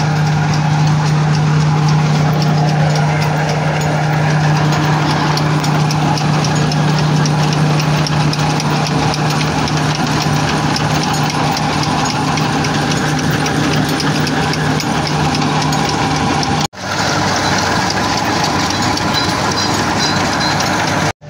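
Vintage wooden threshing mill running off its belt drive: a loud, steady mechanical hum with a fast, even ticking over it. The sound breaks off for an instant near the end.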